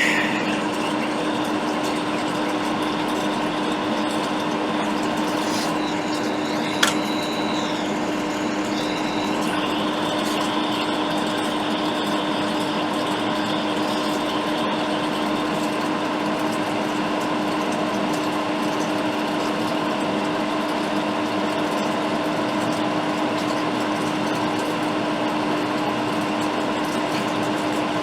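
Hot air rework station blowing steadily with a constant hum, as used to heat and lift small components off a laptop logic board. A single short click about seven seconds in.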